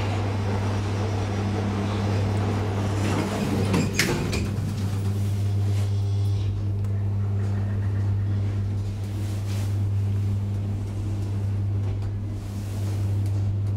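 Traction elevator car doors sliding shut, with a sharp knock as they close about four seconds in, over a steady low hum from the elevator that runs on as the car sets off.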